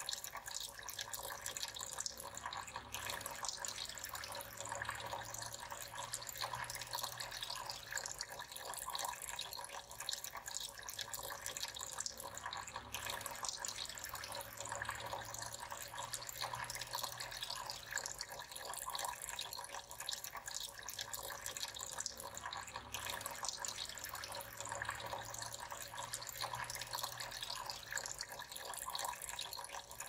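Water trickling and splashing steadily from small pipe spouts into the stacked basins of a tabletop cascade fountain.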